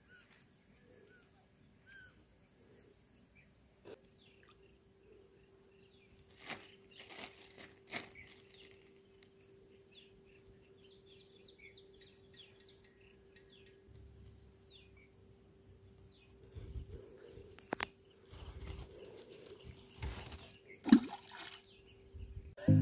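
Outdoor riverbank ambience: scattered bird chirps and a short repeated trill about eleven seconds in, over a faint steady hum. Now and then come rustles and sharp knocks from a fishing net being handled, the loudest knock near the end.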